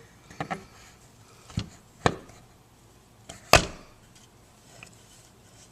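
Sharp knocks of metal automatic-transmission parts being fitted and seated together, about five of them, the loudest about three and a half seconds in.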